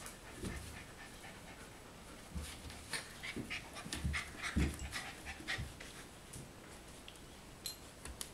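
Four-week-old golden retriever puppies panting as they scuffle in play, with soft thumps and rustling on the fleece blanket, busiest through the middle.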